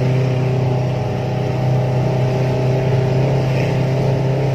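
Engine of an off-road vehicle running at a steady pitch as it drives along, heard from on board.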